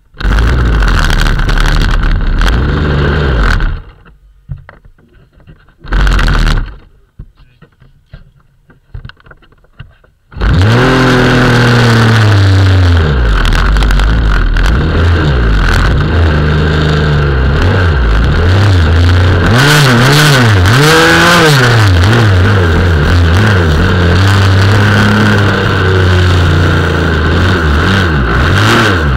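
26cc two-stroke RC boat engine very close by: it runs for a few seconds and cuts out, fires again briefly, then catches about ten seconds in and keeps running, revving up and down.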